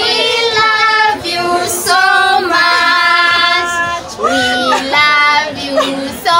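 A high-pitched voice singing long, held notes in phrases a second or two long.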